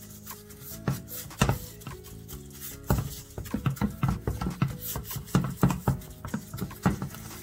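Gloved hands patting and rubbing a dry spice rub into raw spare ribs: an irregular run of short, moist slaps and rubs, coming faster in the second half, over background music.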